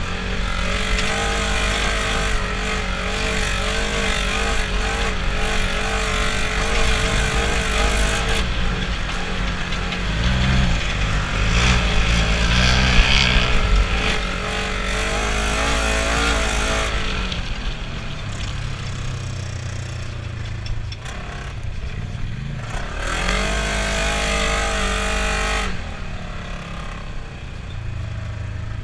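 Polaris RZR side-by-side engine running under way, its pitch rising and falling as the throttle changes. A loud rushing hiss over the engine comes and goes, strongest through the first half and again briefly later on.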